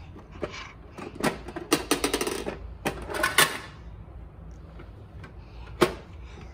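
Hard plastic parts of a Bruder toy garbage truck clicking and rattling in quick runs as its container body is tipped up and lowered by hand, with one sharp click near the end.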